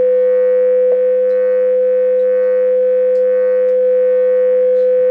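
Steady electronic oscillator tones: one loud, unwavering mid-pitched tone with a quieter lower tone beneath it and faint higher overtones, the audio-rate signals that draw the looping figures on a home-made oscilloscope display. A faint click about a second in.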